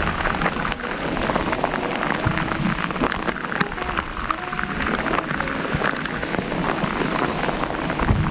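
Steady rain falling on lake water and the kayak: a dense, even patter of countless drops.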